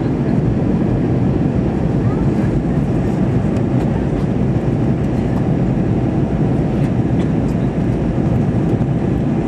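Steady in-flight cabin noise of an Airbus A320-212, the rush of airflow and engine noise heard from a window seat near the wing, even and unchanging.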